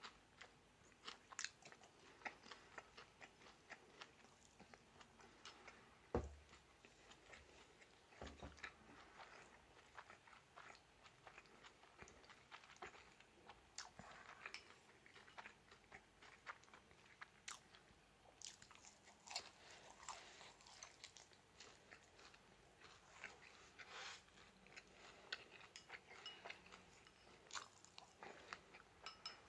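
Faint, close chewing and crunching of battered fried chicken, with many small crisp clicks of the breading being bitten. Two soft low thumps come about six and eight seconds in.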